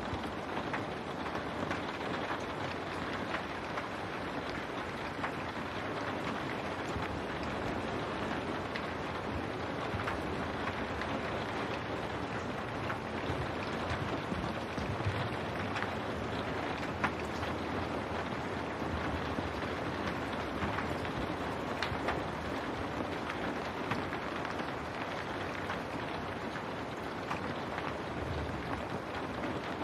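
Steady rain falling on window glass: an even hiss of rainfall with scattered sharper drop ticks, one a little louder about halfway through.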